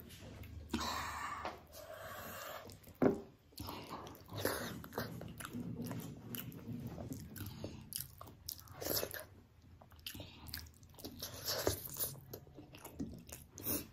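Close-up eating sounds: a person chewing mouthfuls of rice and egg curry with wet smacks and clicks, and fingers squelching rice through the gravy on the plate.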